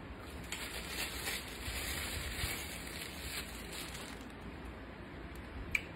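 Close-miked chewing of a mouthful of food, a soft wet crunching for a few seconds, with a single click near the end.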